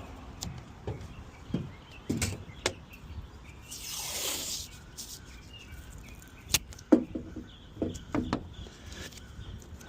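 Tape being worked onto a truck-bed toolbox to stop it vibrating: scattered knocks and taps, a short rasp of tape pulled off the roll about four seconds in, and a few brief squeaks near the end.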